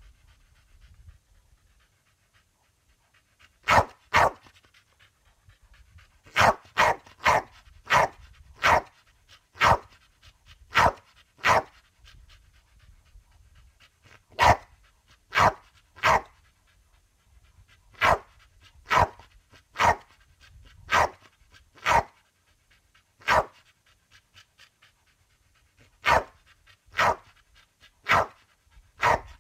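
Pit bull barking in friendly, short single barks, often in pairs about a second apart, with brief pauses and some panting between them.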